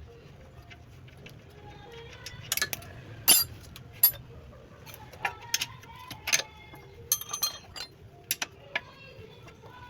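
Metal tools and parts clinking and clicking as they are handled, in an irregular run of sharp knocks, the loudest a few seconds in.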